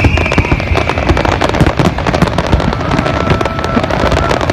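Aerial fireworks display: a dense, unbroken stream of shell bursts and crackling bangs, with a whistle slowly dropping in pitch that fades out about a second and a half in.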